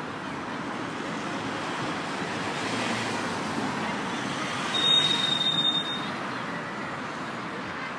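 Steady outdoor background noise, with a brief high, steady tone lasting about a second roughly five seconds in.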